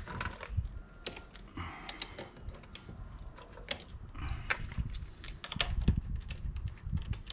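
Irregular sharp clicks and light knocks of metal hand tools and parts being handled on the motorcycle, with the loudest click a little over halfway through.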